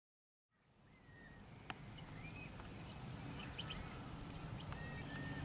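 Outdoor ambience fading in from silence: scattered short bird chirps and calls over a steady high hiss and a low rumble, with one sharp click near the start.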